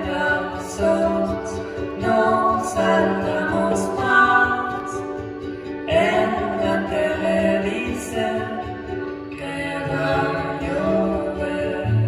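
Live acoustic performance of a slow song: a woman and a man singing together over ukulele and acoustic guitar, in sung phrases with short breaks between them.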